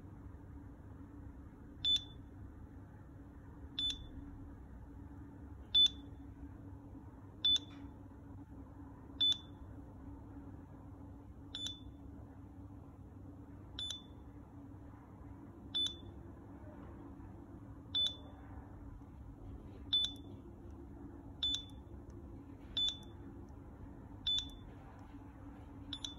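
Point Mobile PM90 handheld barcode scanner giving a short, high beep each time it decodes a Code 128 barcode label, about fourteen beeps one and a half to two seconds apart; each beep marks a successful read.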